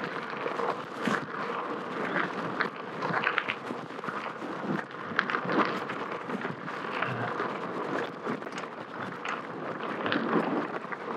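Gravel bike rolling fast down a dirt singletrack: the knobby tyres crunching over dirt and small stones, with frequent irregular clicks and rattles from the bike as it bounces.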